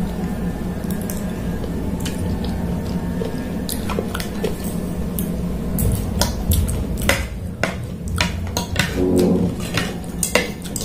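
Metal fork and spoon clicking and scraping on a ceramic plate while eating, the clinks coming more often in the second half, over a steady low hum.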